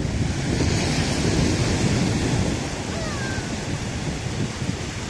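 Surf washing onto a beach with wind buffeting the microphone, a little louder over the first couple of seconds and then easing.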